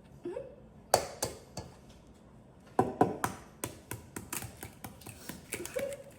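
Kitchen utensils and containers being handled on a counter: a few sharp taps about a second in, then a quick, busy run of clicks and clatter from about three seconds in.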